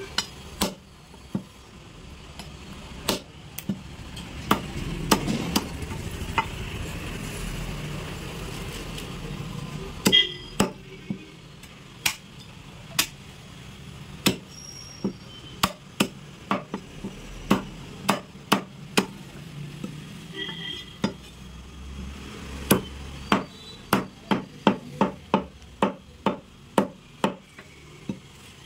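A butcher's cleaver chopping goat bone and meat: single sharp chops at uneven gaps, then a quick run of chops over the last few seconds.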